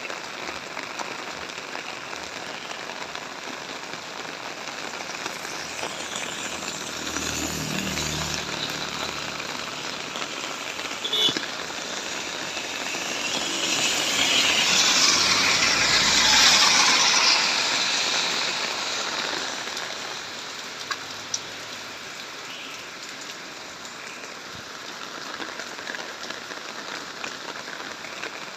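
Steady rain falling on surfaces. A vehicle hums past about a quarter of the way in, and the hiss swells louder through the middle before falling back.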